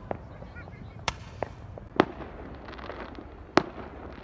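Consumer fireworks going off: five sharp bangs at irregular intervals, the two loudest about two seconds and three and a half seconds in, with a spell of crackling between them.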